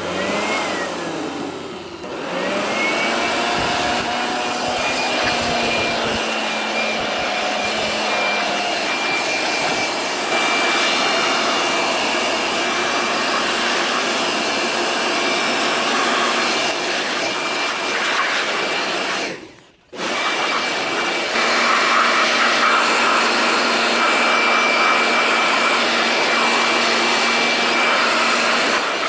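A high-speed electric motor running steadily under a loud rushing hiss, its whine rising as it comes up to speed in the first couple of seconds. The sound drops out for about half a second roughly two-thirds of the way through, then carries on.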